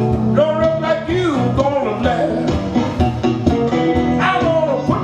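Blues music played on guitar over a steady beat, with a voice singing phrases about half a second in and again near the end.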